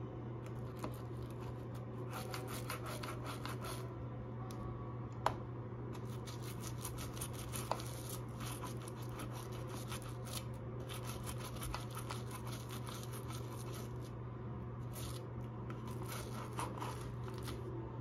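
Toothbrush bristles scrubbing a plastic light-switch plate and its toggles in quick back-and-forth strokes, a rapid scratchy brushing over a steady low hum. Two sharp clicks come through, about five seconds in and again two and a half seconds later.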